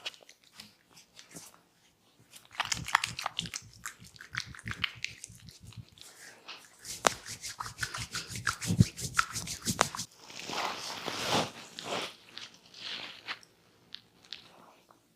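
A barber's hands massaging skin and hair up close: crackly rubbing and scratching, then a fast, even run of taps, about seven a second, then a rubbing swish.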